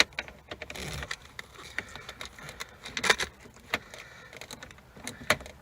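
Irregular light clicks and metallic clinks of hand tools working on bolts under a truck's dashboard, with a few sharper clicks about three and five seconds in.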